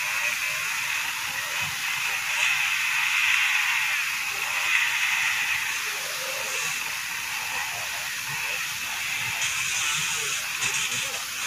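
Dirt bike engines revving on a steep climb, a steady high-pitched buzzing that wavers in pitch.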